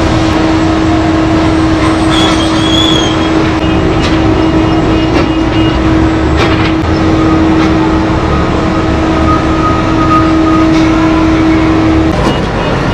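Heavy open-pit mining machinery running: a BelAZ-75710 diesel-electric haul truck beside a P&H electric rope shovel, a loud steady machine noise with a constant whine that cuts off near the end.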